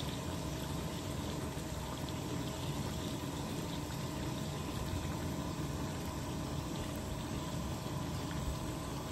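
Large aluminium pot of mutton curry simmering over a gas burner: a steady bubbling with the burner's low rumble underneath.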